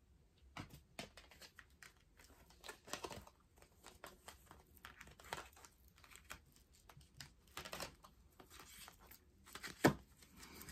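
Tarot cards being shuffled and handled: a run of soft, irregular rustles and light card snaps, with one sharper slap near the end.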